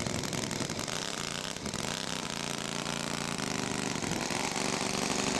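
Small engines of radio-controlled scale Fokker D.VII model aircraft running on the ground, a steady buzz whose pitch wavers slightly.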